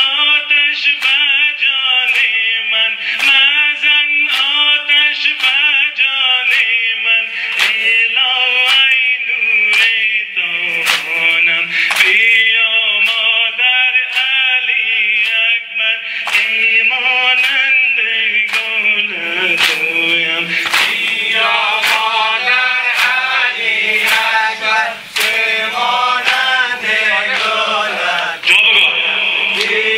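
A Muharram noha (Shia lament) chanted by men, with a crowd of mourners beating their chests in a steady rhythm of sharp slaps under the chant.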